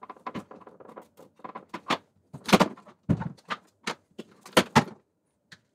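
Irregular plastic clicks and knocks as hands work small shipping gaskets out from between a reverse osmosis unit's filter cartridges and their plastic housing. The loudest knock comes about halfway through, and two more follow close together near the end.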